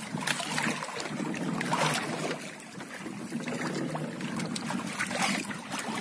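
Sea water lapping and splashing against the side of a small wooden boat, with a few short knocks and rubbing as a fish-trap line is hauled in by hand over the rail.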